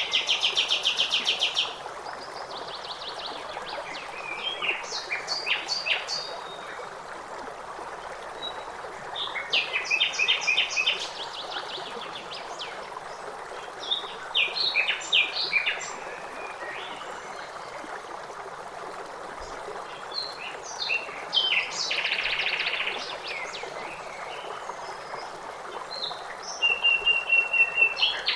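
Songbirds chirping and singing in short bursts of rapid trills and chirps every few seconds, over a steady rush of flowing water.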